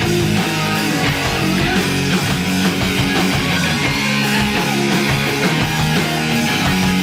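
Rock band playing live, loud and dense: electric guitars over bass and a steady drum beat.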